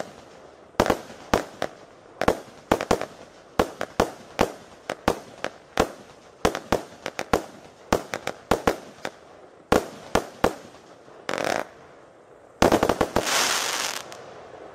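Jorge Evolution 100-shot, 20 mm firework battery (cake) firing: a quick string of sharp shots, roughly two to three a second. About twelve and a half seconds in comes a dense, loudest volley that fades out near the end.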